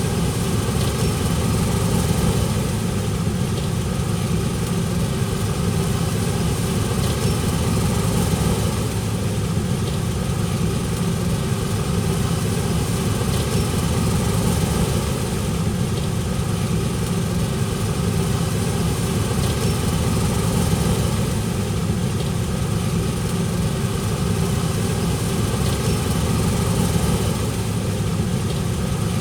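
Heavy farm machinery engine running steadily at a constant speed, with no change in pitch.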